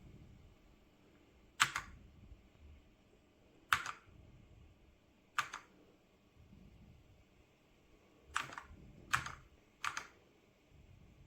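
Single keystrokes on a 60% mechanical keyboard with red linear switches: six separate clacks, spaced one to two seconds apart.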